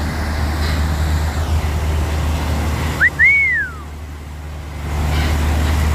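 Heavy multi-axle diesel truck's engine running with a steady low drone. About three seconds in comes a short whistle that rises and then falls in pitch.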